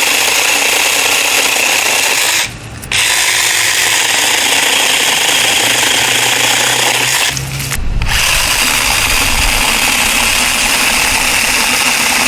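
Zeeksaw 21 V mini cordless chainsaw running steadily, cutting out briefly twice, about two and a half seconds in and again near seven and a half seconds.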